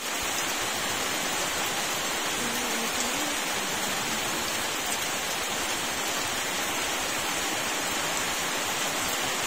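Steady rain falling on banana plants and garden vegetation, an even hiss with no breaks.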